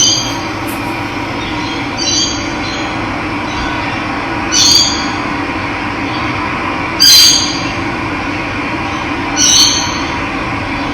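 Running water makes a steady rush, while a bird gives a short, high, squealing call five times, about every two and a half seconds. The call about seven seconds in is the loudest.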